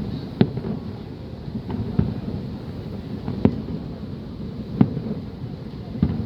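Aerial fireworks shells bursting: five sharp bangs roughly every second and a half, over a steady low rumble.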